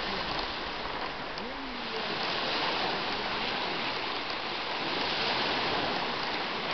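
Steady rushing noise of wind and small waves breaking on a lake shore, growing a little louder about two seconds in.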